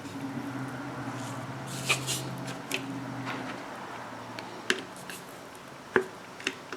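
Scattered clicks and knocks of plastic refrigerator fan-housing parts being handled and fitted back together, the sharpest about six seconds in, over a steady low hum.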